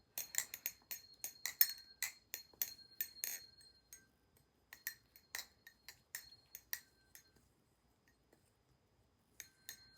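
Aluminium-handled Prysma balisong trainer being flipped: rapid clacks and clinks of the handles and blade swinging around and snapping closed, with a brief metallic ring after some strikes. The clicks thin out and stop about seven seconds in, with a few more near the end.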